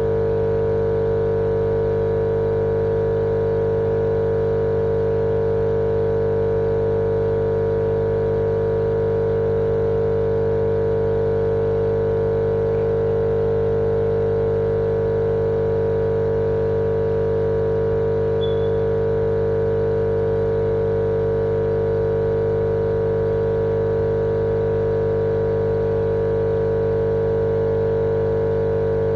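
Steady, unbroken machine hum: a drone with one strong mid-pitched tone over fainter tones above and below, constant in pitch and loudness throughout.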